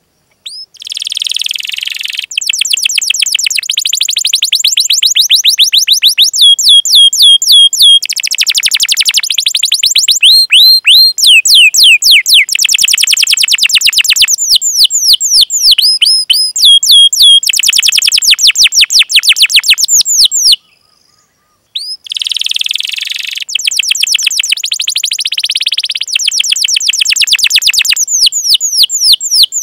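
Domestic canary singing fast, tight rolling trills of repeated high chirps, one trill running straight into the next, with a break of about a second roughly two-thirds of the way through.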